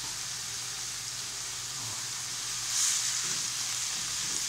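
Pickled mustard greens sizzling in hot oil in a wok, with sliced ginger and garlic added: a steady frying hiss, swelling briefly louder nearly three seconds in.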